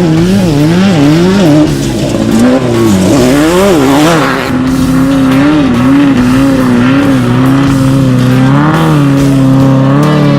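A racing engine revving up and down quickly several times, then running at a steadier, slightly wavering pitch, with music underneath.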